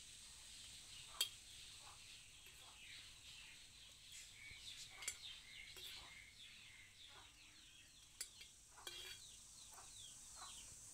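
Near silence, with faint birds chirping in quick short notes and a few light clicks.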